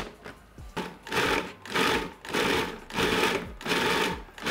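Food processor blending smoked tofu, cashews and coconut cream into a thick paste. The motor runs in about five short pulses, starting about a second in.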